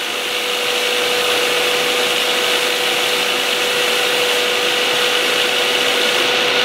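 Hardinge HLV-BK tool room lathe running under power: a steady machine hiss with a constant whine.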